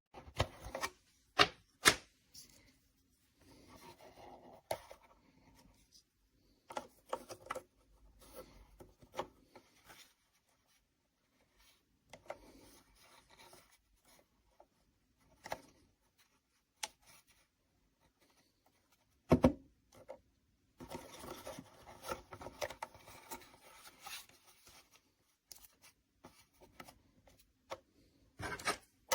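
Handling noise: hands rubbing and sliding over things, with scattered sharp clicks and knocks, the loudest twice near the start and once about nineteen seconds in.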